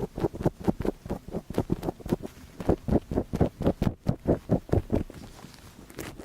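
ASMR ear cleaning: quick rhythmic strokes in the ear, about five a second, stopping about a second before the end.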